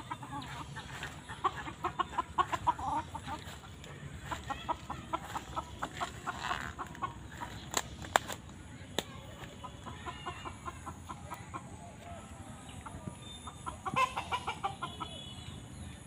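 Chickens clucking in several quick runs of short, rapid clucks, the loudest run near the start and another just before the end.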